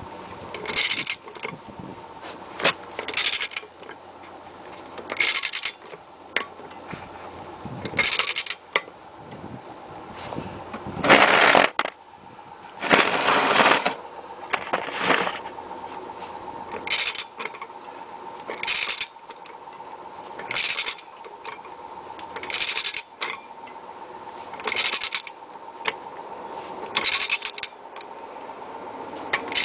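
Ratchet of a click-type torque wrench clattering in short bursts, about one every two seconds, as the axle hub nut is tightened stroke by stroke. The wrench has not yet reached its 150 ft-lb setting and broken over with its click.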